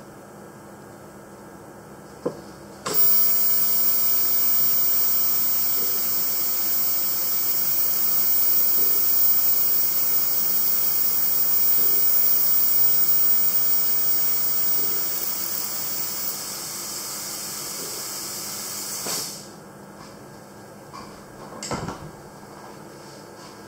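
Ultrasonic dental unit driving an NSK NiTi endodontic insert in water for passive ultrasonic irrigation: a steady loud hiss with a thin, very high whine, switching on about three seconds in after a click and cutting off about nineteen seconds in. A short knock follows near the end.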